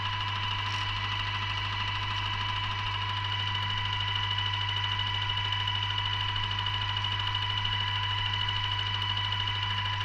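Paint sprayer running steadily: a constant hum with a high, even whine that does not change.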